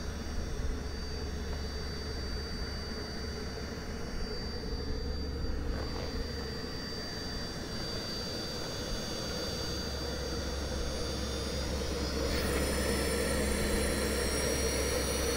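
Small jet turbine engine on a kayak being restarted: a steady whine over a low hum. About three-quarters of the way through the sound turns brighter and its high whine tones begin to climb as the turbine spools up.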